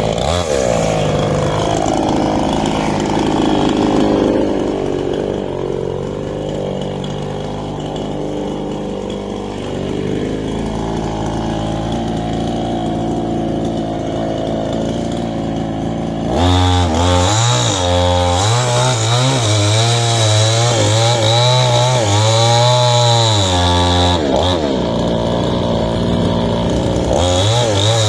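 Small two-stroke chainsaw running through the whole stretch, lower and rougher for the first sixteen seconds. About two-thirds of the way in its engine pitch jumps higher and then dips and recovers several times, as happens when a saw at full throttle is loaded and freed while cutting wood.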